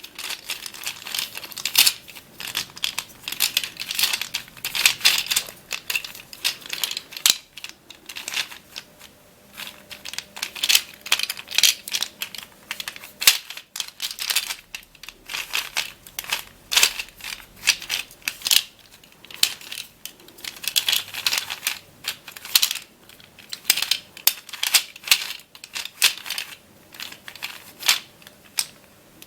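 Back Spin (Magical Dish) ball puzzle being scrambled by hand: the dish is turned and flipped over and over, its balls rolling and clattering inside in a fast, noisy run of clicks and rattles with short pauses.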